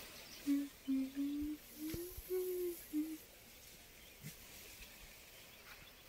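A person humming a short tune of about seven held notes, stepping up and down in pitch, over the first three seconds. After that only faint outdoor background with a couple of small clicks.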